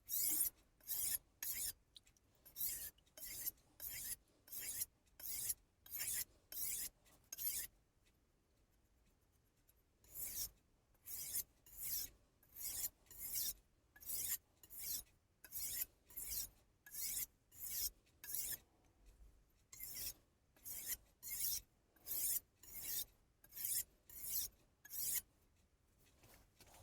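Kai Shun kitchen knife blade stroked back and forth on a Solicut combination whetstone, a rhythmic gritty scraping at about two strokes a second, with a pause of about two seconds partway through before the strokes resume.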